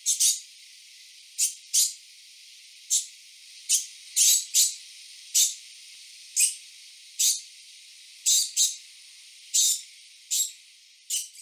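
Common degu giving short, high-pitched chirps, one to two a second at uneven intervals and some in quick pairs, over a steady hiss.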